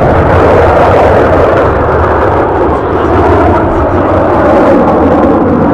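Loud, steady jet noise from Aermacchi MB-339 jet trainers flying over, their turbojet engines making a dense rushing roar with a low rumble beneath.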